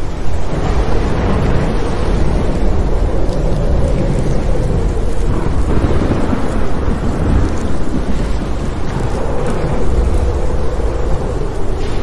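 Thunderstorm: thunder rumbling continuously over the hiss of steady rain.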